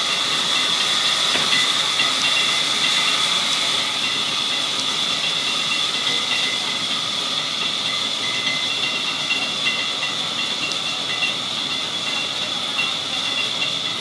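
Sawmill saw running steadily through wood: a loud, even hiss with a steady high-pitched whine over it.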